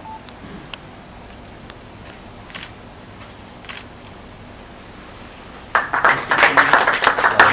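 A quiet room with a few faint clicks and rustles of pens and paper, then a small audience breaks into loud applause near the end.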